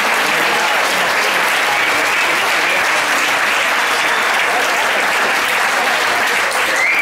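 Audience applauding steadily, with a few voices in the crowd.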